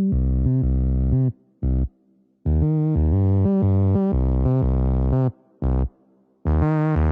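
Synthesizer music with a heavy bass, played in chopped phrases of held notes that stop dead twice for about a second, each pause broken by a single short note.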